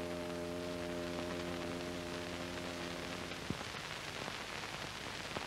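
Faint held musical chord over a steady soundtrack hiss with crackles; the chord stops with a click about three and a half seconds in, leaving only the hiss and crackle.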